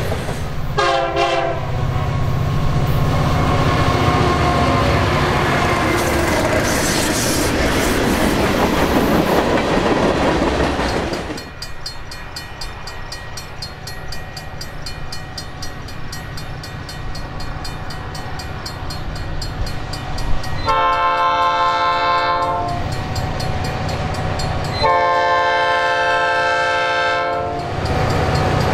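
Loud rumble and wheel-on-rail noise of a freight train for the first ten seconds or so. After a quieter stretch, a diesel locomotive's multi-chime air horn blows two long blasts, about 20 and 25 seconds in, and a third begins at the very end as the train approaches.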